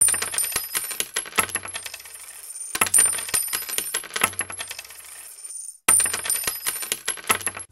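Coins dropping and clinking together in three cascades about three seconds apart. Each cascade starts with a dense jingle of strikes and a high metallic ring, then thins out.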